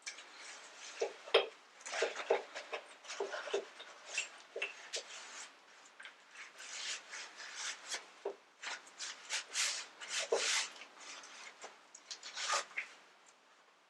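Grease being wiped off a CV axle during a rebuild: a run of irregular rubbing and scraping strokes.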